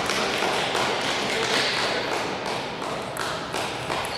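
Table tennis balls clicking on tables and bats, scattered sharp taps over the steady din of a large sports hall.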